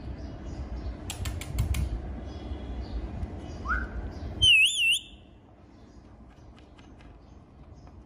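Indian ringneck parakeet giving a short, loud warbling whistle about halfway through, the loudest sound. Before it comes a quick run of sharp clicks about a second in and a brief rising chirp, over a low rumble of background noise that stops abruptly as the whistle starts.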